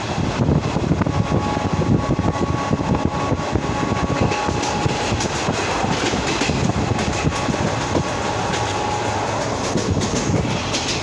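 Indian Railways passenger coach in motion, heard from inside by an open door: the steady rumble and rattle of the wheels on the track. A faint thin whine comes in twice, about a second in and again past the middle.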